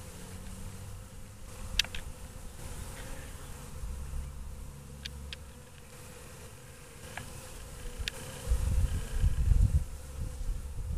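Honey bees buzzing at a hive entrance, a steady hum of many wings from a colony active again after winter. A few short sharp ticks are scattered through it, and a louder low rumbling comes in near the end.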